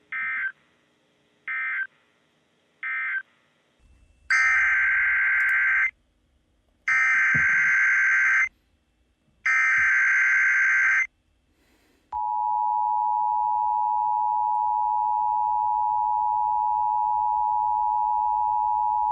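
Emergency Alert System digital tones: three short SAME data bursts, the end-of-message code closing one alert, then three longer SAME header bursts announcing the next. Then comes the steady two-tone EAS attention signal, which holds for the last seven seconds.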